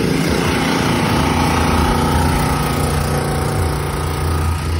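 Portable generator's small engine running steadily, together with the electric blower fan that keeps a bounce house inflated.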